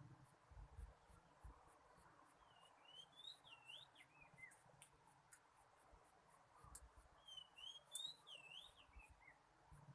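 Oriental magpie-robin singing faintly: the same short phrase of swooping whistled notes, repeated twice about four seconds apart, over light scattered clicks.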